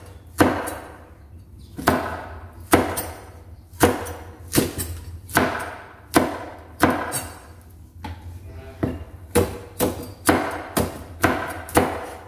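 Broad-bladed kitchen knife chopping fresh red chillies on a wooden cutting board: sharp knocks of the blade on the board, irregular, about one a second and quicker towards the end.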